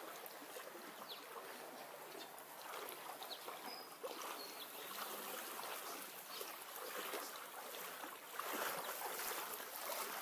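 Flood water sloshing and trickling, a steady watery noise that grows a little louder near the end.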